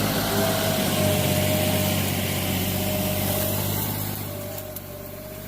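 Tractor engine running steadily while plowing a weedy field, loudest in the first couple of seconds and fading toward the end.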